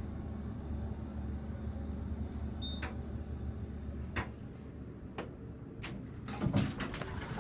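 Elevator car travelling down with a steady low hum. A few sharp clicks come through the ride, and a louder cluster of knocks and thumps comes near the end.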